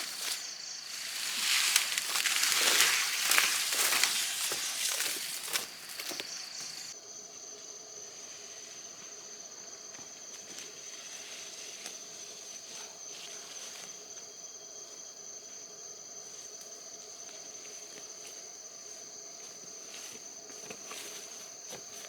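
Rustling and crackling of leaves and branches over a steady high insect drone for the first several seconds; about seven seconds in the rustling stops abruptly and only the steady insect drone remains.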